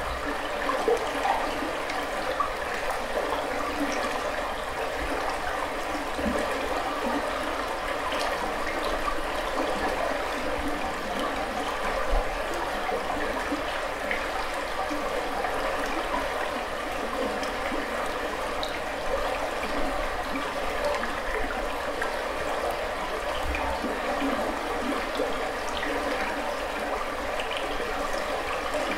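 Shallow river running over a rocky bed: a steady rushing and burbling of water. Underneath is a low rumble, and a few brief pops occur, the most prominent about a second in and near 12 seconds.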